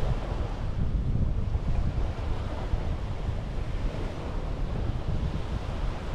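Sea waves washing onto a beach in a continuous wash, with wind rumbling on the microphone.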